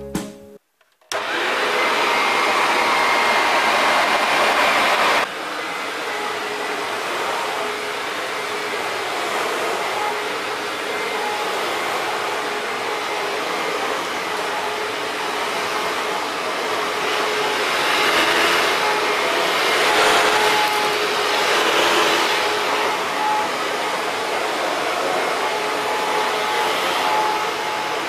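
Maytag WindTunnel bagless upright vacuum cleaner switched on about a second in and running with a steady, loud motor and airflow noise. It drops a little in level about five seconds in, then keeps running as it is pushed back and forth over carpet, swelling now and then with the strokes.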